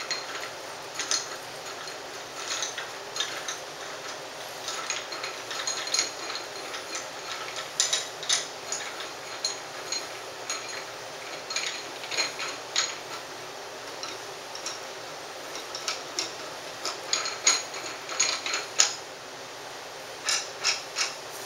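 Counterweight rod of an Orion AstroView EQ mount being worked into place by hand: a run of irregular light metallic clicks and scrapes from the metal parts, more crowded near the end.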